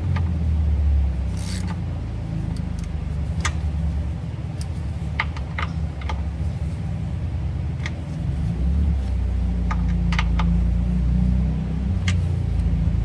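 Scattered sharp metal clinks and taps of hand tools working threaded studs, over a steady low rumble.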